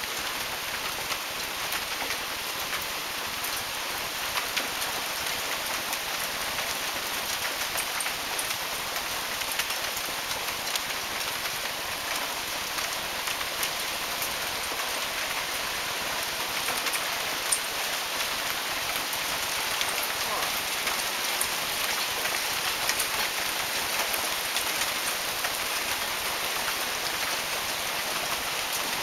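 Hail falling heavily: a dense, steady patter of hailstones striking the ground and nearby surfaces, full of small sharp ticks, with one louder tick a little past the middle.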